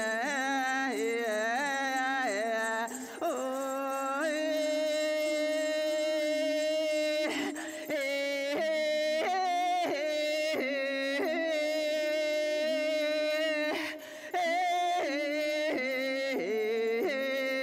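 Two women singing an archaic forest song without accompaniment, in long held notes with a wavering vibrato. The song breaks off for a breath every few seconds.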